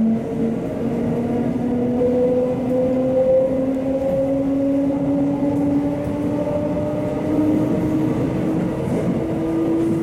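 JR West 681 series GTO-VVVF inverter whine as the train accelerates away from the station, two tones rising steadily in pitch, the upper one dropping suddenly near the start before climbing again. Heard from the car's vestibule deck over the running noise of the train.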